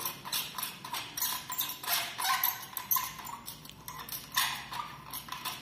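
Metal parts of an antique Lucas carbide bicycle lamp being handled near the water filler: irregular light clicks, taps and scrapes with some squeaky rubbing.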